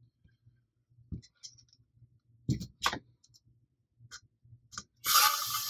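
Scattered clicks and light knocks of small 3D-printed plastic parts and M4 bolts being handled and fitted, with near silence between them. About five seconds in, a steady hiss starts abruptly.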